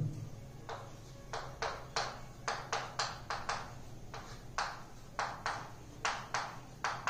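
Chalk writing on a chalkboard: a quick, irregular string of short taps and scratches, about three a second, as each stroke of chalk meets the board.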